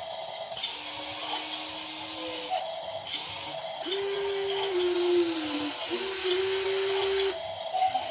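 Electric gear motors of a metal RC construction model whirring in short runs, starting and stopping. The whine steps between a lower and a higher pitch, dips once and comes back.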